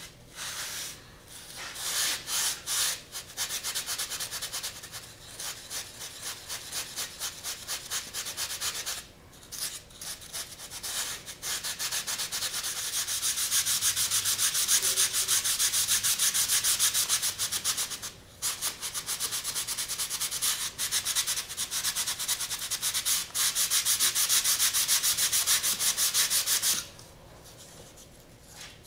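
A sandpaper-covered block sanding a slot into a foam mold half, rubbed back and forth in rapid strokes. There are a few brief pauses, and the sanding stops a couple of seconds before the end.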